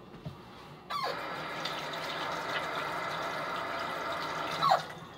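Water tap turned on about a second in, water running steadily into a sink for about four seconds, then turned off.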